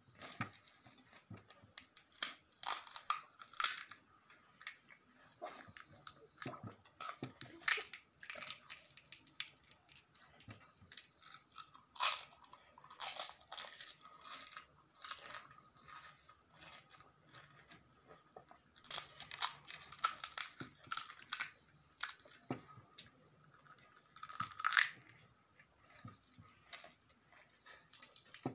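Crisp, hollow pani puri shells crunching as they are bitten and chewed, in several bursts of crackly crunches with quieter chewing between.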